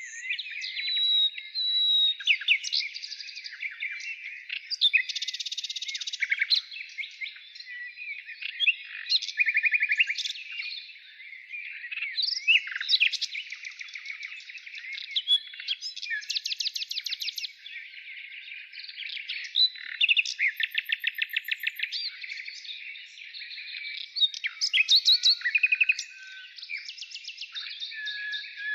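Wild birds singing without pause: a dense run of rapid trills, chirps and whistles, overlapping and varying throughout.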